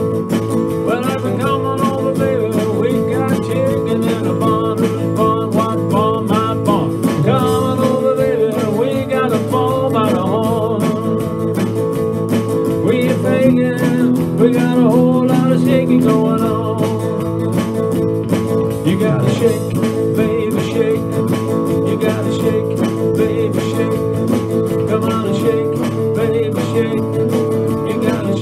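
Electric guitar played in a rock and roll song, with a man singing over it.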